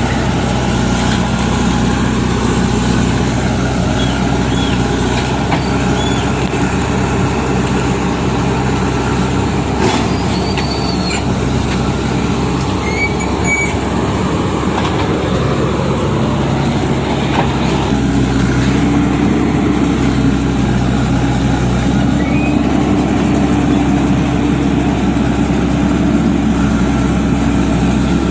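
Diesel engines of a backhoe loader and tractor running steadily, the engine speed rising about eighteen seconds in. A few short high squeals sound near the middle.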